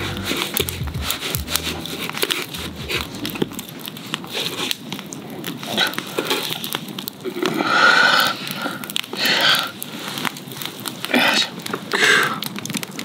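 Wood campfire crackling with many small irregular pops, joined by a few louder rustling, crunching bursts in the second half. Background music fades out in the first few seconds.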